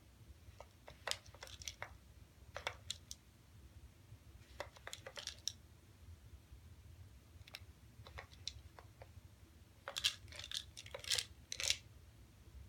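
Dry cat treats rattling and clicking against the hard plastic of a Friskies treat-dispenser toy as a cat paws it and tips it over, in several bursts of sharp clicks, the busiest and loudest near the end.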